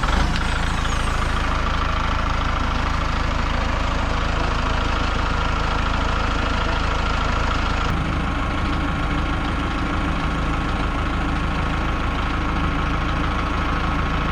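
Engine running steadily just after being started, with a slight change in its tone about eight seconds in.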